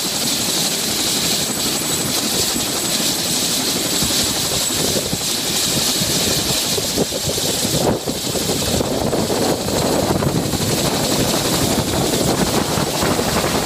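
Turbine helicopter running on the ground at idle with its main rotor turning: a continuous steady rotor and engine noise with a high whine, with a brief dip about eight seconds in.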